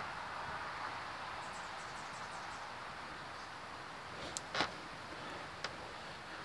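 A hand tool clicking sharply against a heavy battery cable as its insulation is scored, twice in quick succession past the middle and once more just after, over a steady hiss. A faint quick run of high ticks comes early on.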